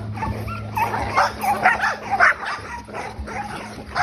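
Pit bull puppies yipping and whining in quick, overlapping short calls as they scuffle and bite at each other, a play-fight getting rough.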